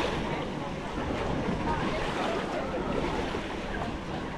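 Beach ambience: sea waves washing on the shore with wind buffeting the microphone, steady throughout.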